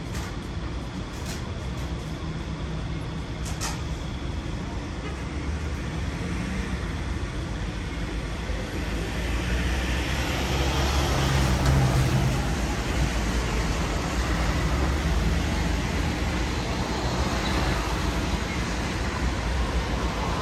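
Street traffic noise with a motor vehicle's engine hum, growing louder about halfway through as a vehicle draws close and staying up to the end.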